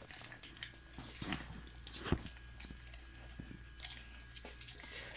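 Dog chewing a treat: faint, irregular crunches and clicks, with one sharper click about two seconds in.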